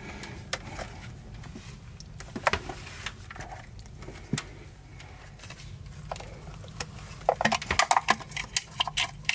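Plastic clicks and knocks as a bilge pump is worked loose and unclipped from its mounting base by hand: a few scattered clicks, then a quicker run of clicks over the last couple of seconds, over a low steady hum.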